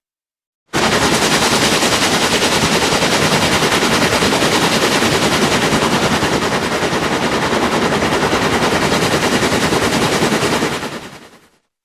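A loud, dense rapid-fire rattle of evenly spaced bangs, about ten a second, starting suddenly a little under a second in and fading out near the end: a machine-gun-like sound effect.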